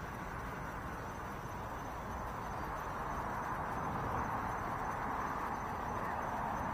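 Steady rushing background noise that grows a little louder about three seconds in, with a faint, thin, high steady whine above it.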